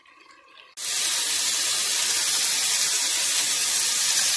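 Steady sizzling hiss of chicken breast strips frying in butter in a skillet, starting abruptly about a second in.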